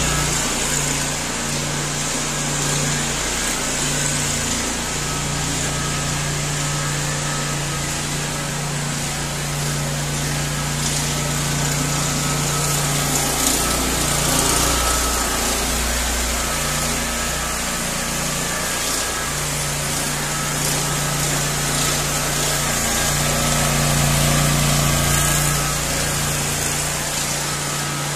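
Gener HK764 764 cc two-cylinder V-twin petrol engine running steadily, driving a ride-on power trowel.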